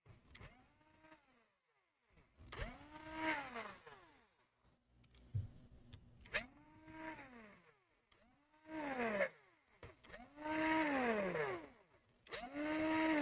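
Small electric screwdriver motor whirring in about six short bursts, each starting with a click and rising then falling in pitch as the trigger is pressed and let go, driving the laptop's small screws; the later bursts are louder.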